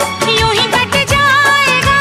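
Hindi film song playing: a wavering melody line over a steady drum beat.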